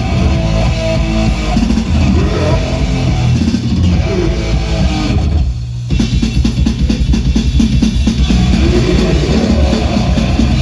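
Live rock band playing loud, with electric guitar and drum kit. About halfway through it drops briefly to a single low held note, then the full band comes back in.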